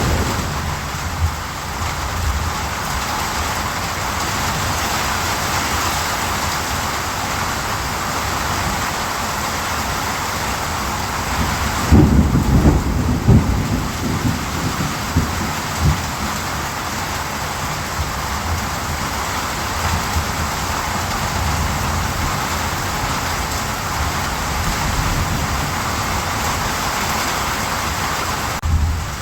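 Steady heavy rain falling, with a low rumble of thunder about twelve seconds in.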